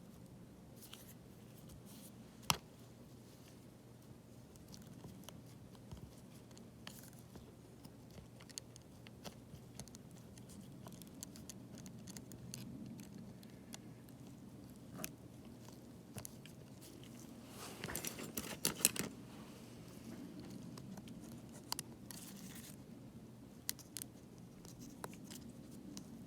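Faint scattered clicks, taps and scrapes of small repair tools handling an opened tablet, with a denser run of clicks about eighteen seconds in, over a faint low hum.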